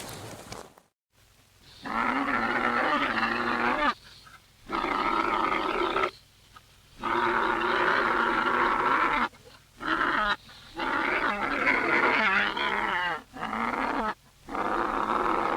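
Camel calls played in reverse: a run of about seven loud, pitched calls, each from under a second to about two seconds long, broken by short gaps.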